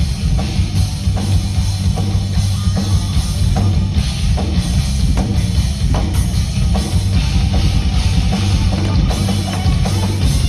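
Rock band playing loud, the drum kit prominent with steady hits over a heavy low end.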